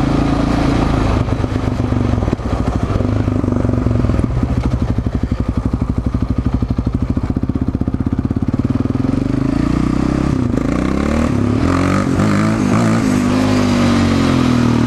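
Yamaha Raptor 700 quad's single-cylinder four-stroke engine running under way. In the middle it drops to a slow, pulsing low-rev beat, and after about ten seconds the revs climb again as it accelerates.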